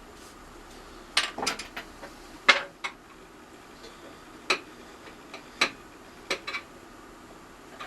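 Irregular sharp clicks and light knocks of small hard objects being handled, about a dozen of them, the loudest about two and a half seconds in.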